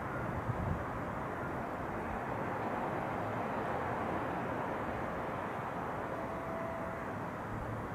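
Steady outdoor city background noise, an even distant hum. A faint brief tone comes about six seconds in.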